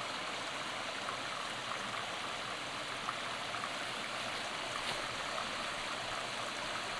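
Small mountain creek splashing steadily over a little cascade.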